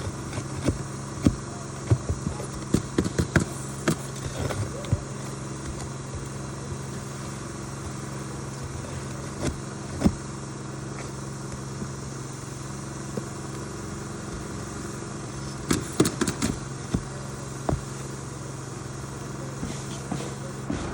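Steady hum of an idling engine, with clusters of sharp knocks and scrapes from hand-tool work on asphalt roof shingles, one burst near the start and another about two-thirds of the way through.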